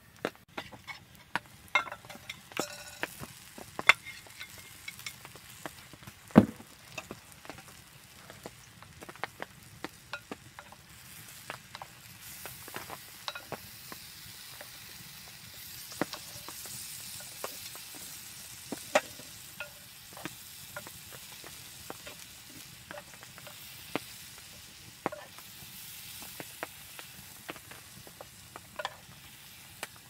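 Wood fire crackling with sharp, irregular pops, then stew being served from a cast-iron pot into a metal dish, with light clinks and stirring sounds.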